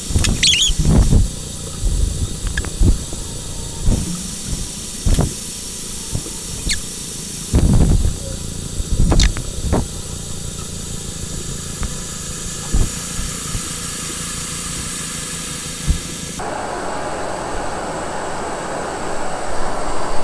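Gas canister stove burner (APG integrated pot system) running with a steady hiss as it heats a litre of water, the hiss changing abruptly a few times where stretches are joined, with scattered short knocks. In the last few seconds it turns into a fuller rushing sound as the water comes to the boil.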